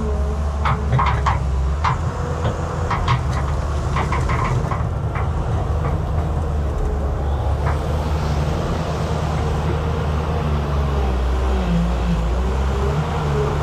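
Excavator's diesel engine running steadily, with a string of sharp metallic clanks and knocks in the first few seconds and a couple more later on.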